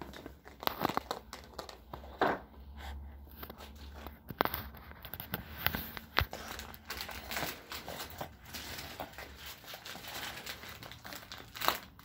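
A bag and candy wrappers being rummaged through and handled: irregular crinkling and rustling with scattered sharp crackles, a few louder snaps standing out.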